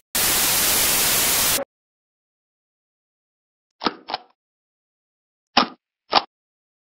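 A burst of static hiss, like a detuned TV, lasting about a second and a half and cutting off suddenly. After a silence come two pairs of short, sharp knocks, one pair about four seconds in and the other near the end, added as sound effects as the title text and a stamp graphic appear.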